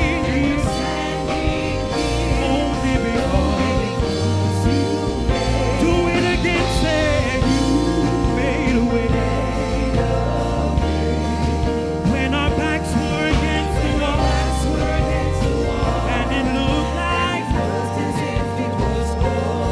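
Gospel worship song: voices holding long, wavering notes over band accompaniment with low bass notes that change every second or so.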